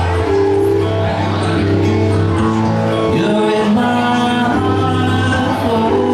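Live acoustic rock band playing: strummed acoustic guitars over electric bass, with a man singing.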